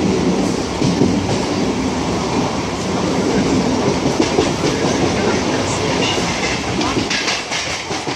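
Running noise of a train heard from on board: a steady rumble of wheels on the rails with a clickety-clack, and a quick run of sharper clicks about seven seconds in.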